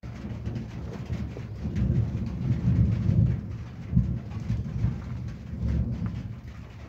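Rolling thunder: a deep rumble that builds about a second and a half in, peaks in the middle, and dies away near the end.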